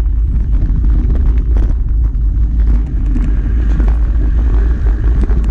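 Mountain bike riding over rough, rocky singletrack, heard through a bike-mounted camera. A loud steady low rumble of wind and jostling runs throughout, with frequent knocks and rattles from the bumps.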